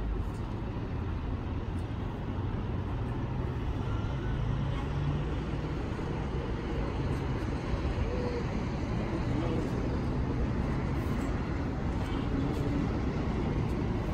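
Steady low rumble of outdoor city ambience, with faint distant voices now and then.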